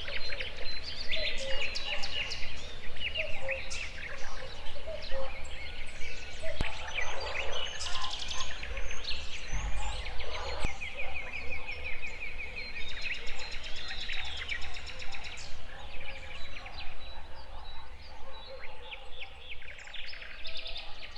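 Wild birds chirping and calling in quick repeated notes and trills, over a steady low rumble.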